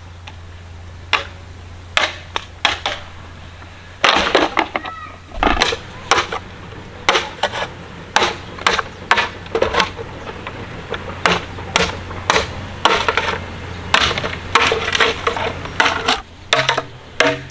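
Machete chopping into a green bamboo pole: a series of sharp, hard strokes at about two a second, with a quick run of strokes about four seconds in.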